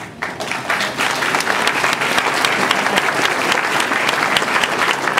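Audience clapping, building up over the first second and then steady.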